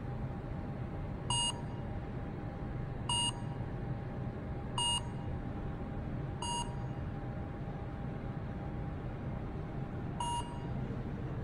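Smartphone QR-code scanning app beeping as it reads QR-code labels: five short, identical beeps, the first four about two seconds apart and the last after a longer gap.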